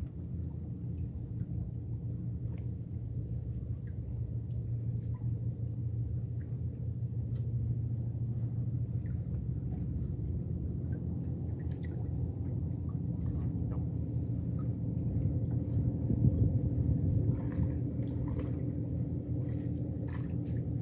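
Small wooden river boat's engine running steadily, a low even hum.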